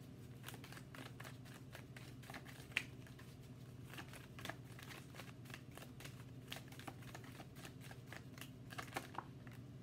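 A tarot deck being shuffled by hand: a quiet, irregular run of soft card flicks and slaps, with one sharper tap a little under three seconds in.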